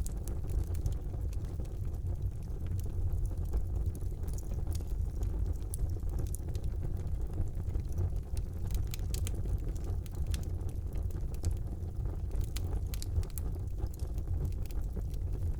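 Wood fire burning in a fireplace: a steady low roar of the flames with frequent small, irregular crackles and pops.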